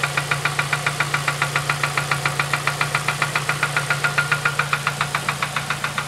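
2007 Ford Focus ZX4 ST's 2.3-litre four-cylinder engine idling with a loud, very regular knock, about eight knocks a second over a steady hum. The engine has been run with no oil, and the owner suspects rod knock.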